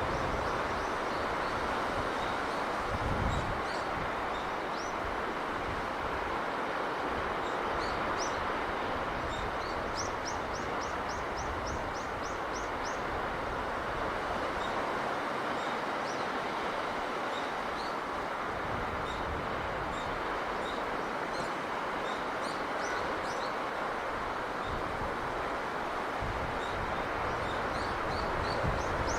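Steady rushing sea breeze, with birds chirping high above it, including a quick run of repeated rising chirps. A low buffet of wind comes about three seconds in.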